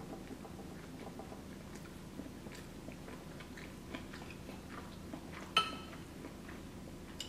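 A person chewing a mouthful of creamy pasta, with soft wet mouth clicks, and a single sharp clink about five and a half seconds in as the metal fork hits the glass baking dish.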